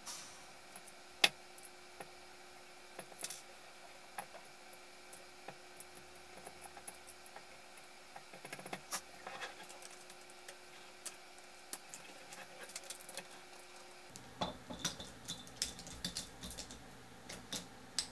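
Small clicks and taps of carbon-fibre gimbal plates, screws and a small tool being handled and fitted together on a wooden desk, with one sharp click about a second in and busier clicking near the end.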